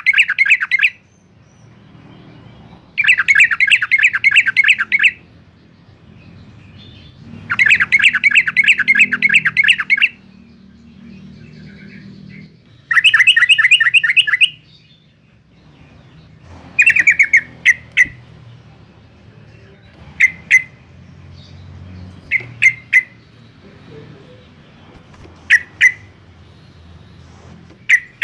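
Yellow-vented bulbul singing: loud bursts of rapid bubbling chatter, each lasting about two seconds, that give way about halfway through to short, sharp single calls every second or two.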